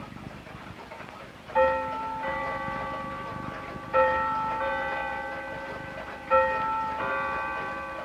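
A clock chiming on bells or gongs: three strokes, each a pair of ringing notes about 0.7 s apart, each stroke struck sharply and then left to die away.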